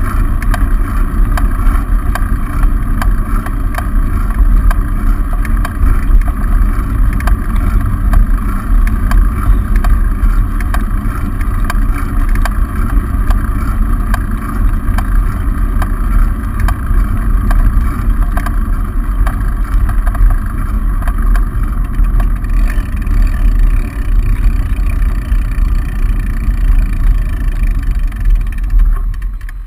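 Steady wind rumble and road vibration picked up by a bicycle-mounted camera while riding along a road.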